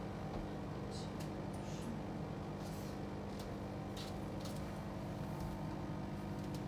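Small clicks and scrapes from cleaning inside a fridge, scattered irregularly over a steady low hum.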